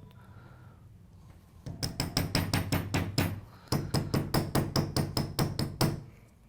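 Hair stacker tapped rapidly on the tying bench in two runs of quick knocks with a short pause between, evening the tips of a clump of deer hair.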